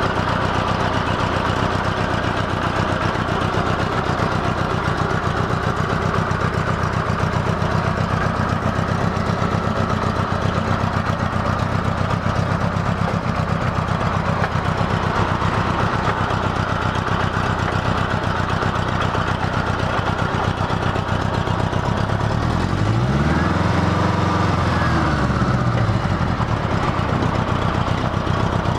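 1975 Honda Gold Wing GL1000's flat-four engine idling steadily, with one brief rise and fall in engine pitch near the end.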